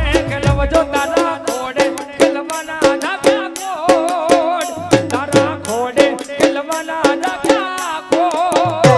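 Live Gujarati folk music: a wavering lead melody over a fast, steady beat of hand-drum and rattle strokes.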